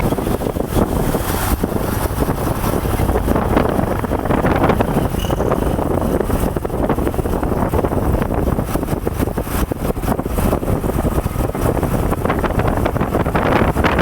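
A bus driving past close by, a steady engine and road rumble mixed with gusts of wind buffeting the microphone.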